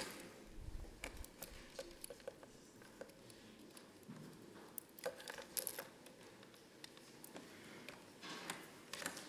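Faint, irregular clicks and taps of a laptop keyboard being typed on, heard through the lectern microphone against quiet room tone.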